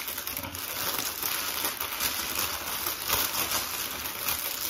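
Clear plastic packaging crinkling and rustling as it is handled, a dense run of fine crackles.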